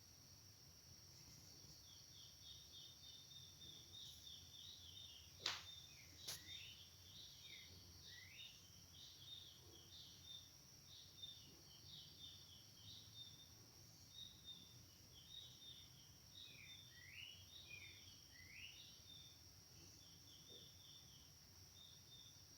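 Near silence: faint, repeated high chirps, like small birds, over a steady high-pitched whine. Two sharp clicks come about five and six seconds in.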